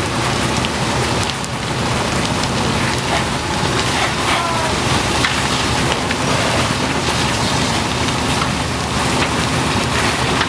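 A fully involved house fire burning with a steady crackling hiss, mixed with the spray of fire-hose water streams, over a low steady engine hum.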